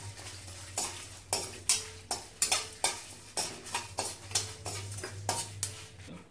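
Steel spatula stirring and scraping whole spices (dried red chillies, coriander seeds, cinnamon, bay leaves) around a stainless steel kadai as they dry-roast in a little oil. About three sharp scrapes a second, over a low steady hum.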